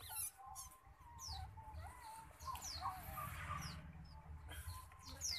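Newborn otter pups squeaking: several faint, short, high-pitched chirps that fall in pitch.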